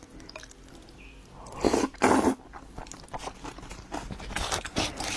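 A person eating home-made shredded-pork noodles close to the microphone: chewing and mouth clicks, with two louder bursts of noise about two seconds in.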